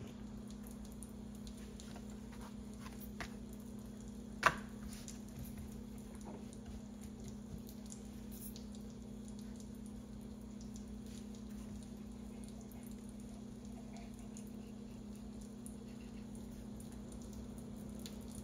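Faint handling sounds of a knife slicing a thin sheet of raw bread dough into strips on a work surface, over a steady low hum. One sharp click stands out about four and a half seconds in.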